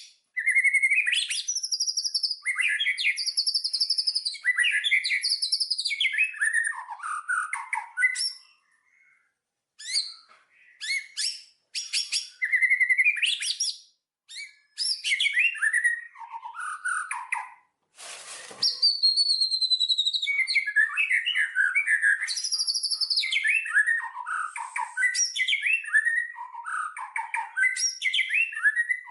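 Songbirds singing long, varied warbling phrases of quick chirps, trills and whistled glides, broken by a couple of short pauses about a third of the way in. A brief burst of noise sounds at about the two-thirds point.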